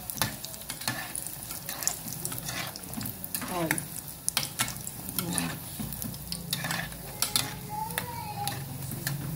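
Bolinhos de chuva (small balls of sweet dough) sizzling as they deep-fry in hot oil in an aluminium pot. A spoon clicks and scrapes against the pot at irregular moments as the balls are stirred and turned.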